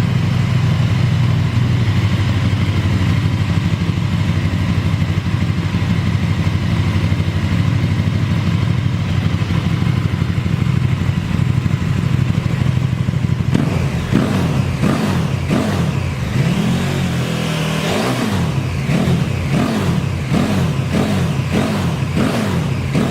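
KTM 1290 Super Duke R's 1301 cc 75° V-twin with an Akrapovic exhaust idling steadily, then revved in a quick series of throttle blips, about one or two a second, from about halfway through.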